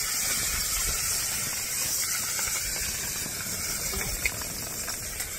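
Fish frying in hot oil in a frying pan, a steady sizzle.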